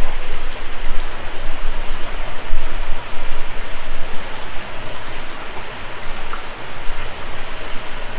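A small rocky creek's flowing water makes a steady rushing wash of noise.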